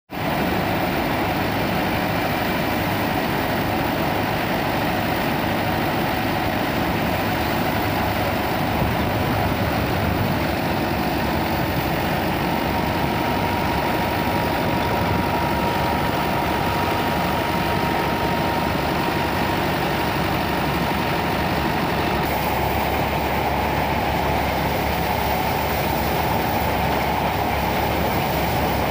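A wheat thresher driven by a New Holland Fiat 640 tractor, running steadily: the tractor's engine under load and the thresher's constant mechanical din as dry crop is forked in.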